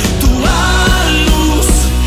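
Gospel pop-rock worship song playing: full band with a steady drum beat and bass under a held melody line that rises about half a second in.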